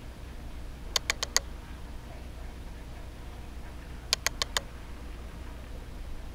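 Two quick runs of four sharp clicks, about three seconds apart, over a low steady hum.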